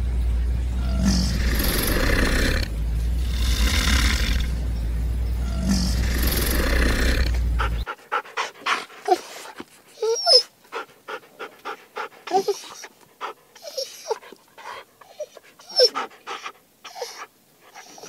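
An animal breathing hard in loud, noisy breaths about every two seconds over a low rumble. About eight seconds in this gives way to a quieter string of short clicks and brief squeaky yelps.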